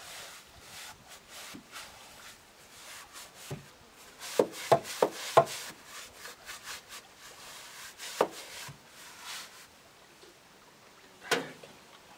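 Paintbrush scrubbing paint onto weathered wooden wall boards in repeated strokes. A quick run of four sharp wooden knocks about four and a half seconds in, with single knocks near eight seconds and near the end.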